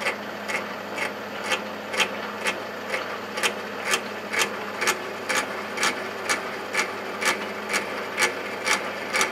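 Metal lathe running slowly with a twist drill fed from the tailstock, drilling a pilot hole through the bronze insert of a cast iron wheel: a steady hum under an even tick about twice a second, once per turn of the out-of-true workpiece.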